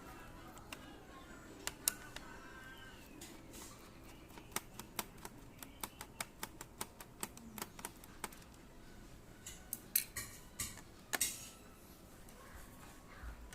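A run of sharp clicks and light taps, often two or three a second and fading out near the end, from hands handling a laptop's plastic case and parts.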